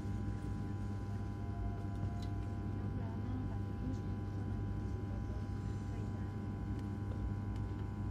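Steady electrical hum inside a high-speed EMU passenger carriage standing at the platform, a low drone with several steady whining tones above it from the train's onboard electrical and air-conditioning equipment.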